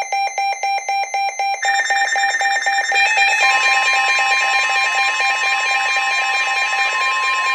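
Weather radio alert alarms sounding for an incoming severe thunderstorm warning: a rapid pulsing beep, joined by further overlapping alert tones about one and a half seconds in and a steady tone about three and a half seconds in.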